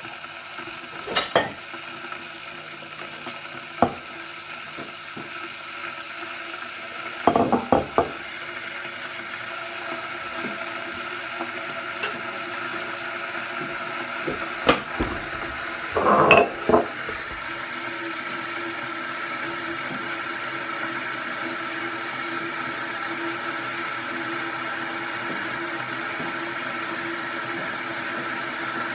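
Electric kettle heating water: a steady hiss and rumble that slowly grows louder as it nears the boil. Several short knocks and clatters come in the first half, the loudest clusters about seven and sixteen seconds in.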